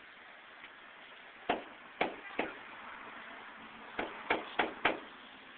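A series of sharp knocks: three about a second and a half in, then four more in quicker succession about four seconds in, over faint steady background hiss.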